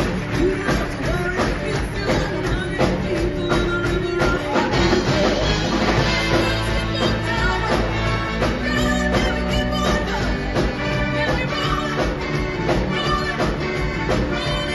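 Live band with a horn section playing upbeat rock-and-roll style music with a steady drum beat.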